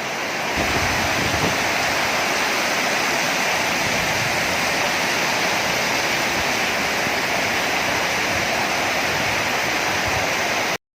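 Steady, even rushing of water, a constant hiss that holds without a break and stops for a moment just before the end.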